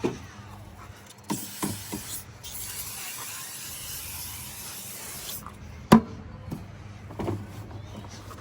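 A spray can hissing in one steady burst of about three seconds as detailing product is sprayed onto the mower's plastic, with a few light knocks before it and a sharp click about six seconds in.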